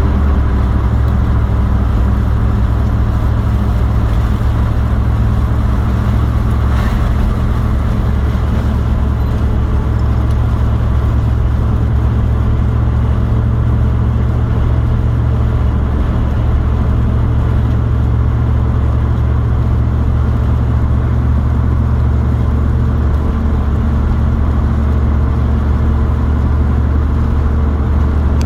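Steady low drone of a motor vehicle running, engine hum and road noise.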